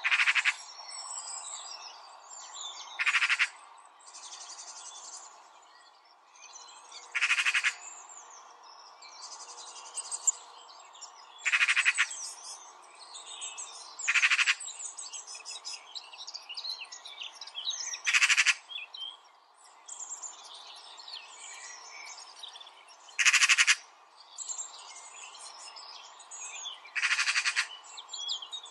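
Birds chirping and singing, with one louder call of about half a second repeating every three to five seconds over a busy background of shorter chirps.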